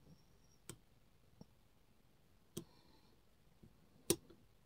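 Dimple lock cylinder being picked with a flag pick: three sharp, quiet metallic clicks spread over the few seconds, with a fainter tick between the first two, as the pick works the pins.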